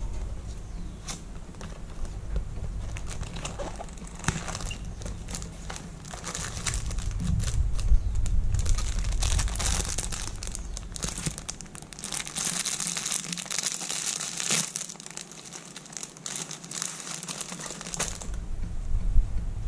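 Clear plastic wrapping around a pack of disposable face masks crinkling and crackling as it is handled and torn open, in dense bursts, heaviest over the second half, along with some handling of the cardboard box.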